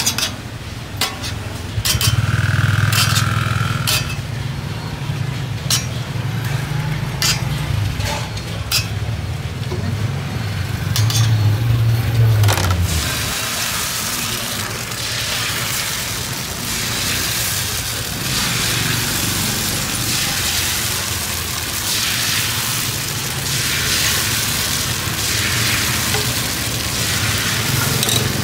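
A metal spatula clicks and scrapes against a multi-cup griddle pan over a low hum. About halfway through, fresh batter poured into the hot oiled cups starts to sizzle, and a steady frying hiss runs on from there.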